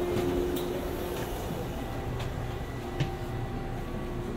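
Interior sound of a JR 189 series electric train car: a steady hum with a few faint clicks.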